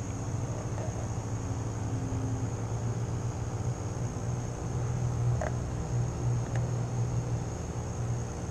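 A steady low mechanical hum with a faint, constant high-pitched whine above it, and two faint clicks a little past the middle.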